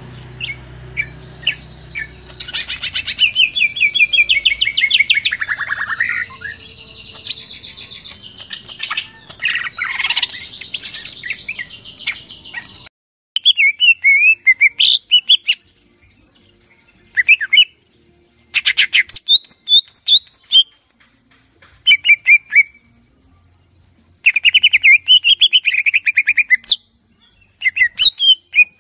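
Cucak ijo (green leafbird) singing a varied, loud song of whistles, fast trills and chattering notes, the mixed 'isian' song that bird keepers use as tutoring material. About halfway through, the background hiss cuts out abruptly. The song then comes in separate bursts with short silences between.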